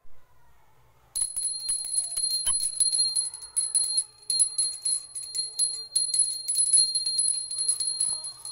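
A puja hand bell rung rapidly and continuously, its clapper striking many times a second and sustaining a high, steady ring. It starts about a second in, over faint music.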